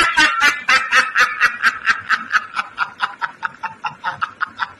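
High-pitched laughter in a rapid string of short staccato bursts, about six or seven a second, that gradually slow and fade away toward the end.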